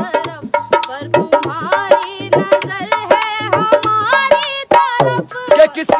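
A woman singing a melodic song, accompanied by a hand-played dholak drum beating a quick, steady rhythm.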